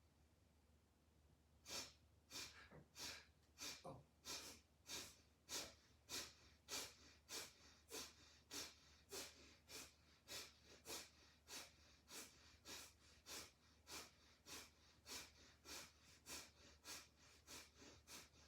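Kapalabhati pranayama, the "fire breath": a person's short, forceful exhalations through the nose, faint and in a steady rhythm of nearly two a second, starting a couple of seconds in.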